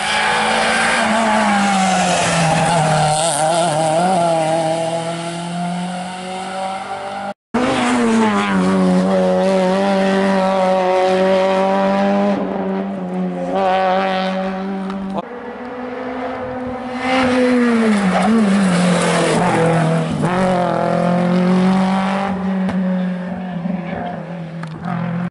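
Rally cars being driven flat out on a tarmac stage, one after another, their engines revving high with the pitch rising and falling through gear changes and braking. The sound cuts out briefly about seven seconds in between two passes.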